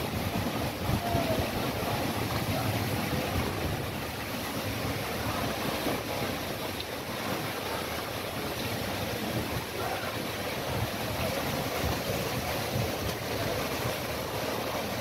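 Strong storm wind buffeting the microphone, with rough harbour water splashing against a concrete quay and heavy rain, as a steady noise with a low rumble.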